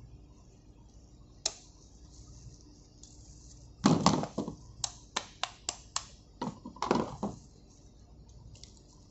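Sharp metallic clicks and clinks from circlip pliers and a steel locking ring being fitted onto a fuel oil high-pressure pipe nipple: one click about 1.5 s in, then a loud clatter near 4 s and a quick run of about a dozen clicks up to about 7 s.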